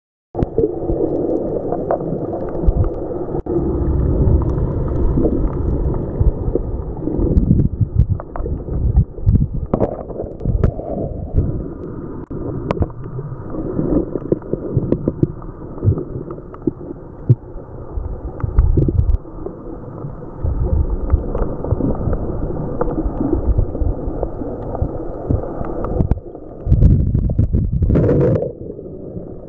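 Shallow-water wave surge recorded underwater: a muffled rushing that swells and ebbs every few seconds as big waves pass overhead, with scattered clicks.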